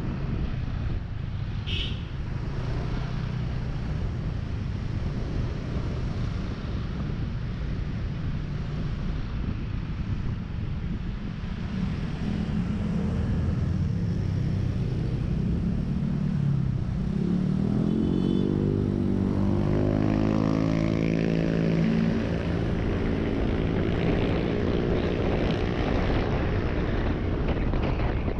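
Yamaha NMAX 155 scooter's single-cylinder engine running under way, with wind noise on the microphone. A little over halfway through, the engine's pitch rises as the scooter speeds up, then holds steady.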